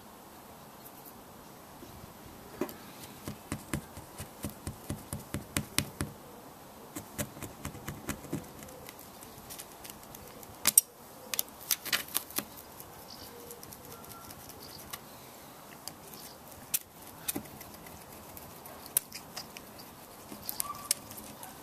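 Hand work on a windscreen during a chip repair: a run of short scraping strokes, about two a second, followed by a few sharp clicks and taps.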